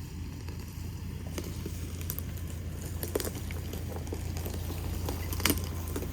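Ford Ranger Tremor pickup creeping over a trail, its engine a steady low hum while the tyres crunch and crackle over loose rocks, leaves and twigs. There are scattered sharp cracks, the loudest about three seconds in and again near the end.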